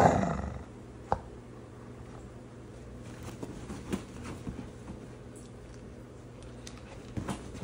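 A sudden thump at the start that dies away over about half a second, a sharp click about a second in, then scattered soft taps and clicks.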